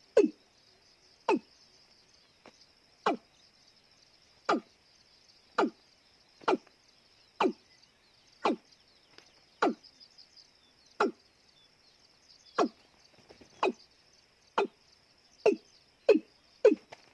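Watercock calling: a series of deep, hollow notes, each dropping sharply in pitch, about one a second and quickening near the end, over a steady high buzz of insects.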